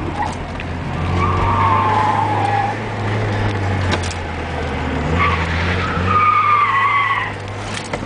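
Porsche 944S driven hard through turns, its tires squealing in two long stretches, the first about a second in and the second about five seconds in, each sliding slightly down in pitch over the steady engine note, heard from inside the cabin.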